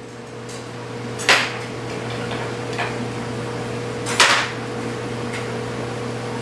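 Steady hum of a running laundry machine, swelling over the first couple of seconds and then holding. Two sharp clinks, about a second in and about four seconds in, from a metal stirrer and an aluminium injector knocking against the glass measuring cups of hot liquid plastic.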